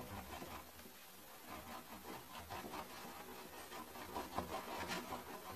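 Knife blade cutting and scraping into a wax candle on a plastic cutting board, scoring it until it splits open. A run of faint, irregular scratches and clicks, a little louder near the end.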